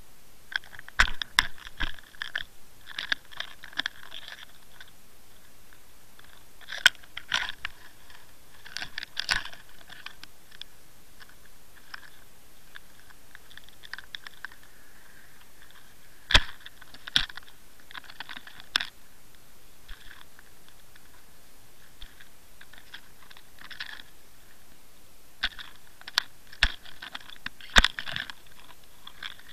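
Irregular bursts of sharp clicks, crackles and scrapes against an underwater camera housing, in four clusters over a steady hiss, as a pike strikes the dead bait in front of the lens.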